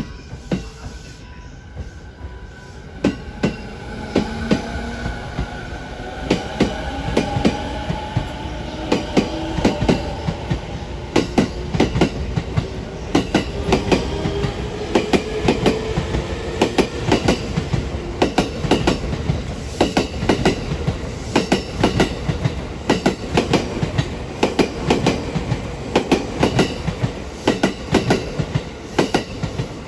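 Electric commuter train rolling over rail joints on a steel railway bridge, its wheels making dense, rhythmic clusters of clacks that carry on throughout. A whine glides in pitch under the clacks during the first half.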